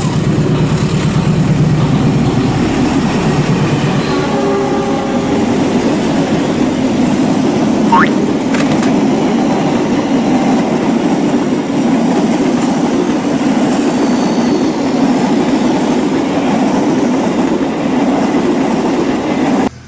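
Battery-powered toy trains running on plastic track: a steady, loud whirring and rattling of the small motors and wheels on the rails. A brief rising chirp sounds about eight seconds in.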